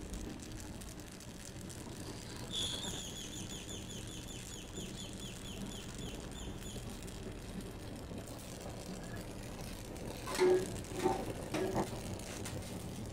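Oxy-acetylene torch flame hissing steadily while aluminium filler rod is melted onto a thin aluminium tube. About two and a half seconds in, a bird trills rapidly for about four seconds, and near the end there are three short, louder sounds.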